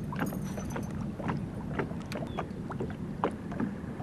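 Water lapping and slapping against a small boat's hull in quick, irregular splashes, over a low steady hum.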